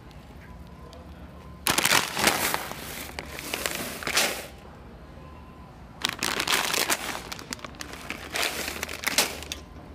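Large plastic candy bag (Reese's Pieces) crinkling as it is handled, in two bursts: the first about two seconds in, the second about six seconds in, each lasting a few seconds.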